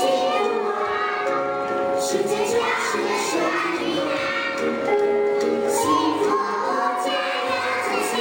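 Children's song: a group of children's voices singing together over instrumental backing music.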